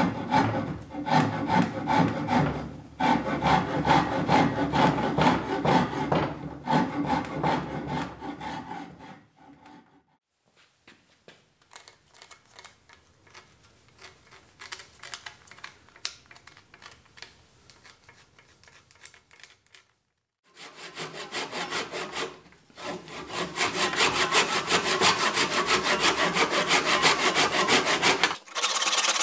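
Hand rasp scraping a rough oak branch in quick back-and-forth strokes. After about nine seconds the rasping stops, and there is only faint scratchy rubbing of an abrasive stone over the porous millstone. Loud scraping on wood starts again about twenty seconds in and cuts off near the end.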